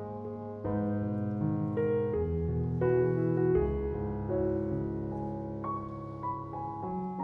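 Soft background piano music, slow chords sustained one after another.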